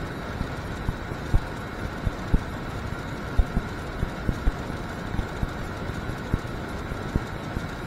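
Fingers twisting two stripped wire ends together, giving scattered light, irregular clicks and rustles over a steady background hiss.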